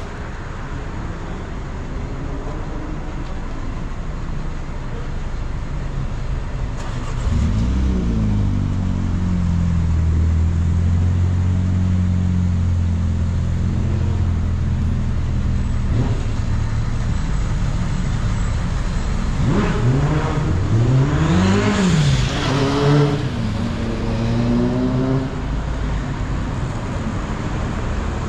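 Street traffic: a motor vehicle's engine drones steadily close by from about seven seconds in. Between about twenty and twenty-five seconds in, an engine revs up and down in pitch as a vehicle accelerates.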